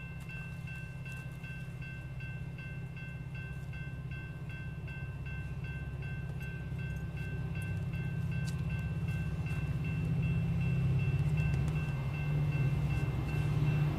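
A Metra EMD F40PH diesel locomotive approaches with its commuter train, its low engine and rail rumble growing steadily louder as it nears. A grade-crossing bell dings at a steady, even rhythm over it.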